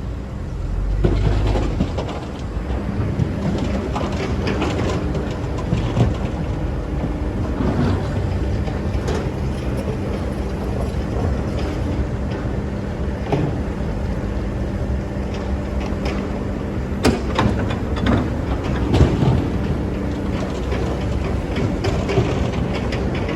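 Excavator engine running steadily while it digs, with scattered knocks and clanks, two of them louder about 17 and 19 seconds in.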